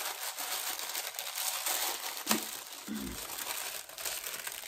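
Packaging wrap crinkling and rustling continuously as a beauty box is unpacked by hand, with one short sharp knock about two seconds in.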